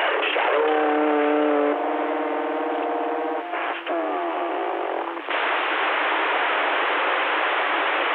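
Radio receiver audio from the speaker of a CB-style radio tuned to distant stations. A held, buzzy tone from a keyed-up station lasts about three seconds and changes pitch partway through. A couple of brief garbled, distorted voices follow, then steady band static hiss for the last three seconds.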